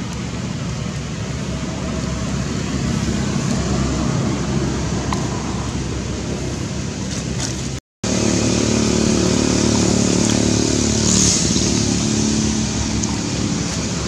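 A motor vehicle engine running steadily, with a low hum. The sound cuts out for an instant about eight seconds in, then comes back louder.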